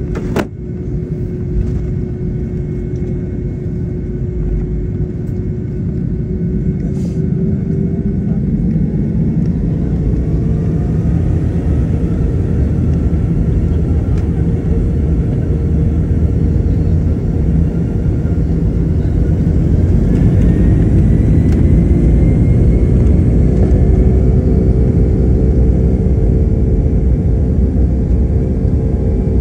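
Boeing 757 turbofan engines heard from inside the cabin, spooling up for takeoff in a turn-and-burn departure, with thrust applied as the jet turns onto the runway. A steady engine hum gives way to a rising whine about eight seconds in, and a second rise comes about twenty seconds in. Under it a deep rumble grows steadily louder.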